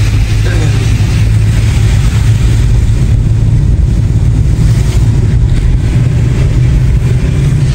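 A car driving: steady, loud engine and road noise.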